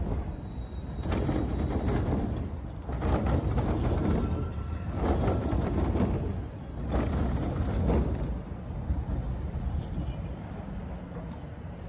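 Siemens ULF low-floor tram passing close by, its wheels rumbling over the track junction. The rumble swells in four surges about two seconds apart as the wheelsets cross the rails of the junction, then dies down after about eight seconds.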